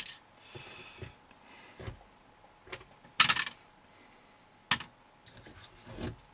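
Small metal parts and hand tools clicking and clinking on a wooden workbench: a handful of separate knocks, with a louder clatter about three seconds in. Near the end there is a duller knock as the plastic RC car chassis is picked up.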